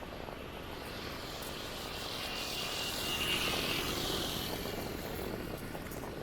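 Street traffic: a vehicle passes, its sound swelling to a peak about three seconds in and then fading, over a steady low rumble.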